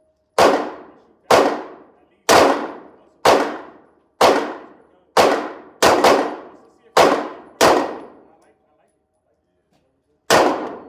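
Handgun shots fired at a steady pace of about one a second, roughly ten in a row with two coming close together, then a pause and one more shot near the end. Each report rings out and fades over most of a second.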